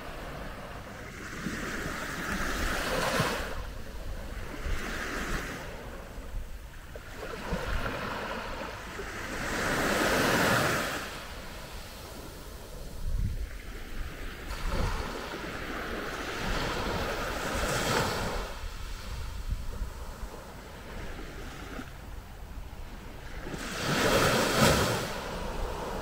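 Small, calm sea waves breaking on a sandy beach and washing back. The surf swells and fades every few seconds, loudest about ten seconds in and again near the end.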